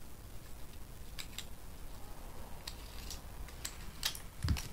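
Light, scattered clicks and taps from a small pocket flashlight being handled and opened, with a duller knock near the end.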